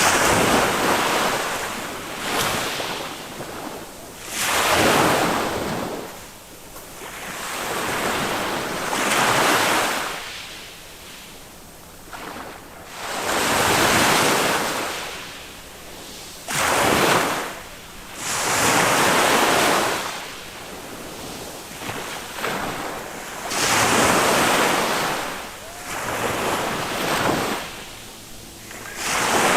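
Small waves of a calm Mediterranean sea breaking and washing up the beach. Each surge of surf swells and fades, one every three to five seconds.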